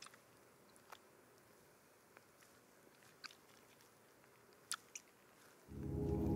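Wet mouth sounds of a man chewing and licking a fork: a handful of sharp, separate smacks and clicks over a faint hush. Near the end, ambient music with a low drone swells in.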